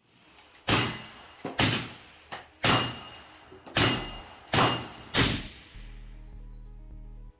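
Six loud, sharp shots at uneven intervals, each with a fading tail, fired from a 24-inch AR-15 chambered in 5.56, over background music. Near the end the shots stop and only a steady low music tone remains.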